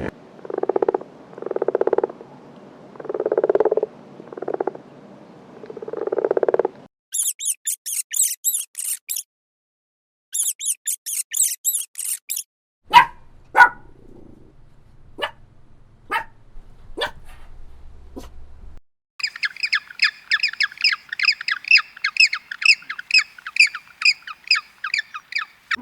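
A run of different animal calls. First come five short, low calls about a second apart. Then bursts of rapid, high bird chirping, a few sharp squawks, and near the end a long stretch of dense, busy chirping.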